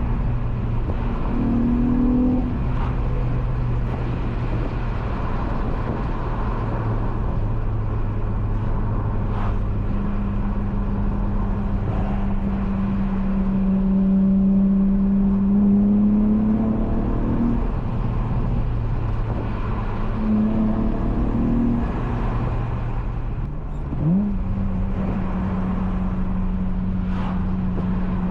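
Honda J32A3 3.2-litre V6 driving through a loud Skunk2 Megapower single-exit exhaust with resonator delete, heard from the cabin. The engine note holds steady, climbs slowly in pitch around the middle, and gives a short, sharp rev rise near the end before settling again.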